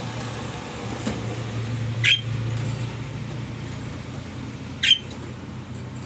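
Budgerigar giving two short, sharp chirps, about two and five seconds in, over a steady low hum.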